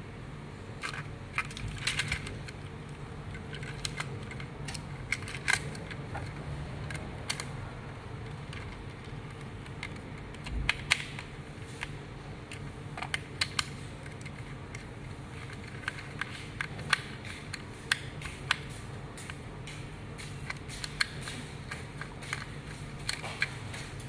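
Irregular small plastic clicks and rattles from a remote-control shark toy's ABS plastic body parts being handled and pried apart, over a steady low hum.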